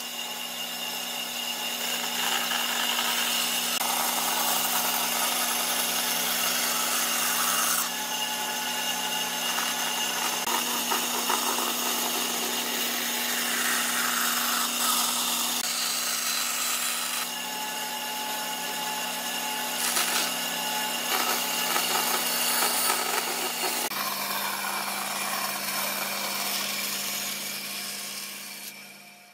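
Band saw running steadily while its blade cuts curves through a wooden board, the cutting noise swelling and easing as the wood is fed. The motor hum drops slightly in pitch about 24 seconds in, and the sound fades out at the very end.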